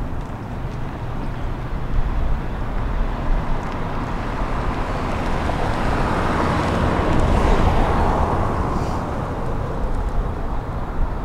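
Road traffic outdoors: a car passing by, its engine and tyre noise swelling to a peak about seven seconds in and then fading, over a low steady rumble.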